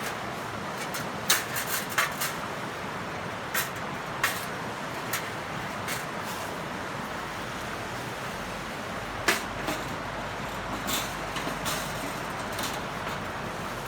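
Wood fire crackling in a grill, with irregular sharp pops over a steady hiss.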